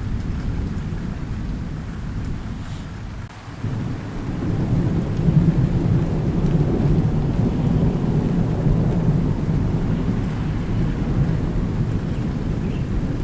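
Thunderstorm with steady rain falling. A roll of thunder dies away about three seconds in, then a new low rumble of thunder builds and rolls on over the rain.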